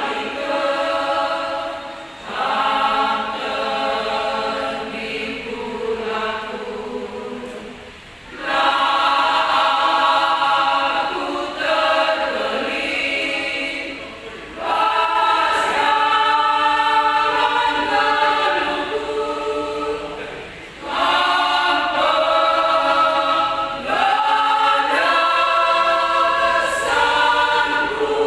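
Women's church choir singing a hymn, in phrases of about six seconds with brief breaks for breath between them.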